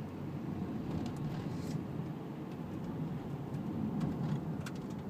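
Steady low rumble of a car's engine and tyres on the road, heard from inside the cabin while moving slowly in traffic, with a few faint ticks.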